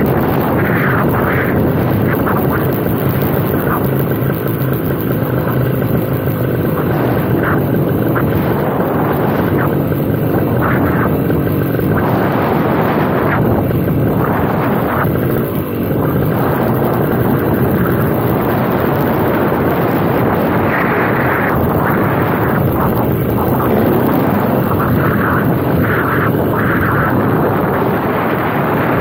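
Paramotor engine and propeller running steadily in flight, mixed with wind rushing over the microphone.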